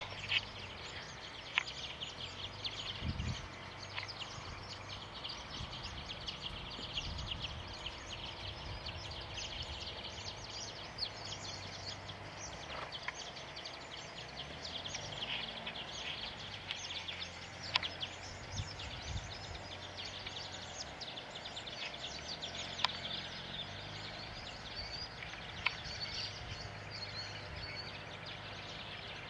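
Outdoor ambience of many birds chirping and twittering without a break over a low rumble, with a few sharp single clicks scattered through.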